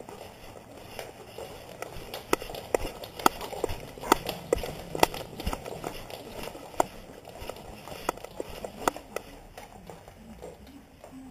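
A dog's claws clicking on a hardwood floor as it moves about, picked up by a camera strapped to the dog, with rustling between the clicks. The clicks come irregularly, several a second, and thin out near the end.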